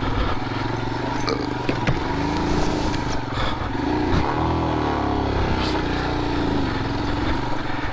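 Royal Enfield Himalayan 450's single-cylinder engine working in low gear on a rough trail, its revs rising and falling as the throttle is blipped, with a few sharp knocks along the way.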